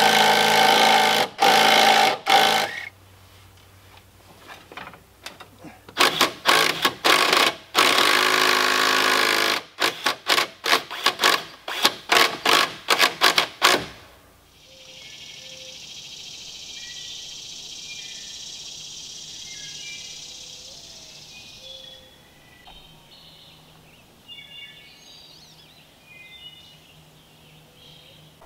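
Cordless drill running under load into log bracing: a long run, another after a pause, then a quick string of short trigger bursts that stops about fourteen seconds in. After that a steady high hiss until about two-thirds through, then scattered bird chirps.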